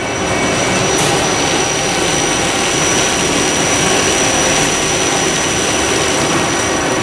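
KONE EcoDisc MX18 gearless traction machine running, its sheave turning the hoist ropes as the car travels. A steady whir builds over the first second and then holds, with a thin high-pitched whine over it.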